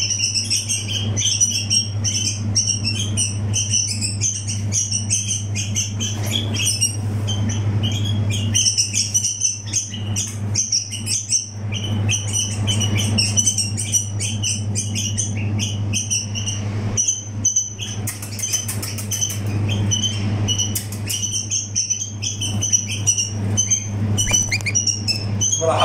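Bulbul fledgling calling almost without pause in rapid, short, high chirps while being hand-fed fruit: the begging calls of a young bird. A steady low hum runs underneath.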